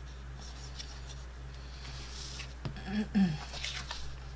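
Kraft cardstock rustling and sliding as it is folded and pressed flat by hand, with a click a little before three seconds in and a brief murmur of voice just after it; a steady low hum runs underneath.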